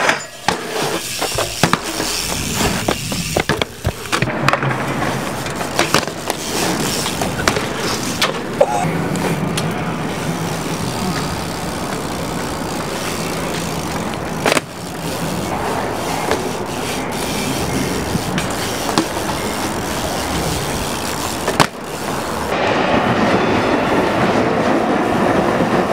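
BMX bike riding on concrete and metal: tyres rolling and pegs grinding along ledges and rails make a steady rough scraping, broken several times by sharp clacks of the bike landing and hitting the ground.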